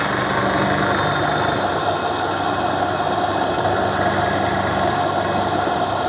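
Permanent-magnet generator being spun by its test-bench drive at a steady speed. It gives a constant machine hum with a steady whining tone over it.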